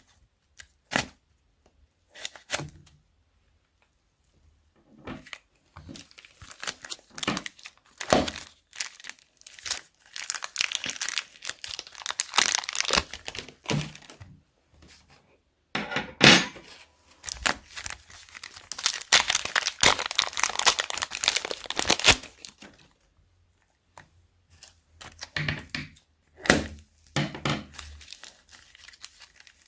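Plastic bags crinkling and tearing as they are handled and opened: scattered crackles, with two longer stretches of dense crinkling about ten seconds in and again from about sixteen to twenty-two seconds.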